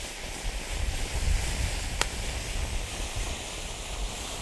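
Gaoo F25 Multicolour fireworks fountain (volcano) hissing steadily as it sprays sparks and coloured stars, under heavy wind buffeting on the microphone. A single sharp pop about two seconds in.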